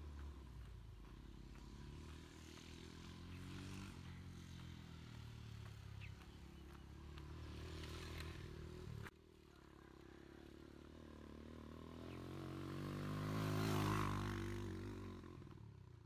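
A motor vehicle's engine running, with shifting pitch. The sound breaks off suddenly about nine seconds in, then a vehicle engine draws near, is loudest near the end, and fades away as it passes.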